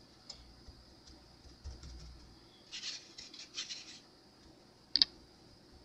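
Faint scratchy strokes of a paintbrush dabbing acrylic paint, in a few short bursts a little under halfway through, then a single sharp tap about a second before the end.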